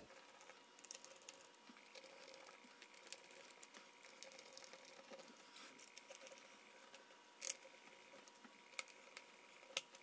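Faint, scattered clicks and ticks of a small screwdriver driving the screws of a Dell Latitude 5400 laptop's bottom cover, with a few sharper clicks in the last few seconds.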